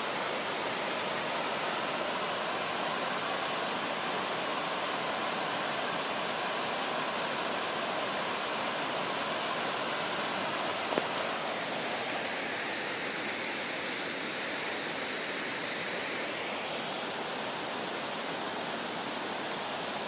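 Waterfall: the steady rush of falling water, even throughout, with one brief click about halfway through.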